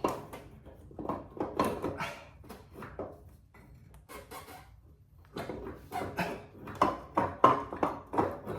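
Irregular metallic clinks and knocks of a motorcycle's rear wheel, axle and spacers being shifted and bumped while the wheel is worked out of the swingarm, with a quieter stretch about four to five seconds in.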